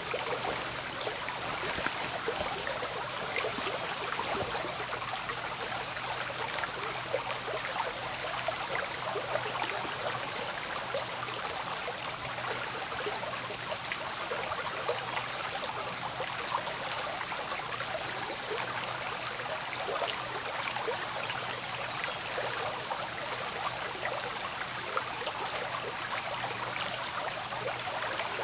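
Small shallow woodland brook running over rocks: a steady, even babble and rush of water.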